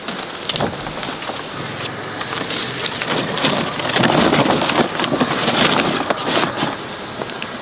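Rain falling, a dense patter of drops on a surface, growing heavier for a few seconds in the middle.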